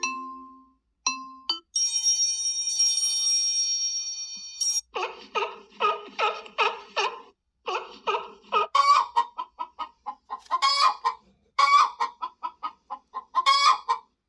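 Google Pixel 7a ringtones: a mallet-struck tone dies away, a held bell-like chime sounds for about three seconds, then from about five seconds in a ringtone of repeated chicken clucks runs in short quick groups.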